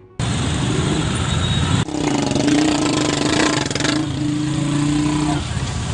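Motorcycle engine running with a steady hum as the bike moves through floodwater, over a dense rush of splashing water; the sound breaks off briefly about two seconds in.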